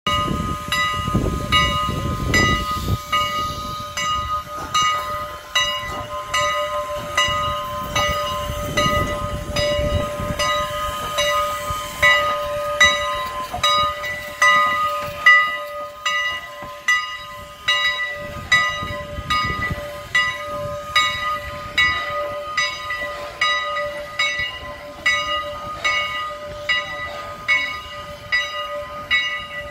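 Strasburg Rail Road No. 89, a 2-6-0 steam locomotive, pulling away slowly: heavy exhaust chuffs and steam hiss in the first few seconds and again around 8 to 10 seconds in, over its bell ringing steadily at about one and a half strokes a second.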